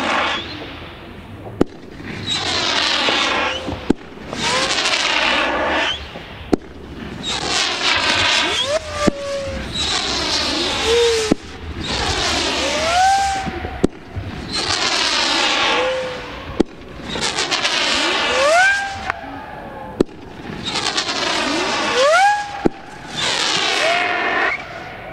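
Fireworks shots going off one after another, about one every two seconds. Each is a sharp crack followed by a second or so of loud hissing, often with a thin whistle that rises in pitch.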